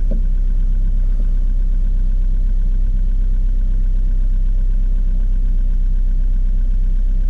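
Daihatsu Feroza's four-cylinder engine running steadily as the 4x4 drives through deep snow, a constant low drone.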